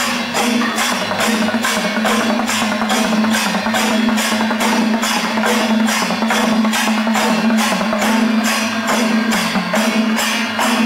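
Background music: a steady held drone with jingling percussion beating evenly, about two strokes a second.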